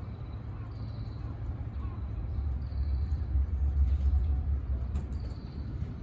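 Low rumble of street traffic, swelling about two and a half seconds in and easing off toward the end.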